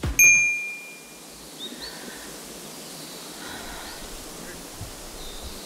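A single bright chime rings out just after the start and fades within about a second. Then comes quiet outdoor ambience, with leaves rustling and a few faint bird chirps.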